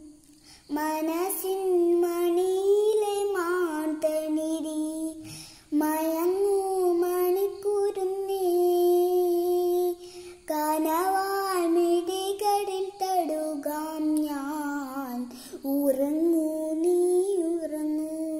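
A young girl singing a Malayalam song, holding long notes that glide up and down, with short pauses for breath about half a second in, around five and a half seconds in, and around ten seconds in.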